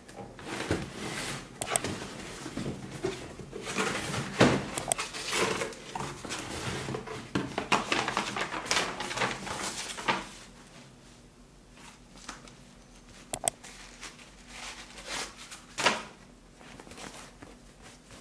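Cardboard shoe box being opened and tissue paper rustling as a knit ankle boot is lifted out: crinkling and handling noise for about ten seconds, then quieter, with a couple of sharp taps near the end.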